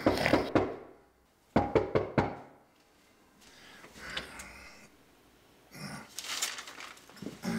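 Knocking on a door: a quick group of three or four raps, then three more raps about a second and a half later.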